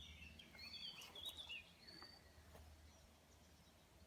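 Faint woodland birdsong: several short whistled chirps in the first two seconds, then thinning out, over quiet background.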